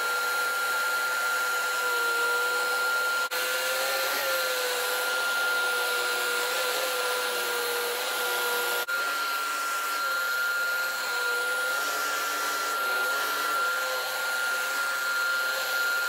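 BOREAS handheld UV mattress vacuum running at its fixed maximum suction on a bed sheet, with its motor and spinning beater brush roll. It gives a loud, steady hum with a high whine, broken by two momentary dropouts, about 3 and 9 seconds in.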